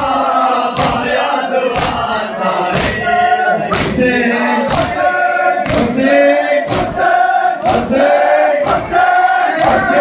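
A crowd of men chanting a noha together, with their palms striking their chests in unison about once a second (matam).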